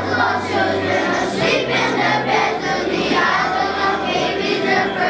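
Children's choir singing in unison over instrumental accompaniment with held bass notes.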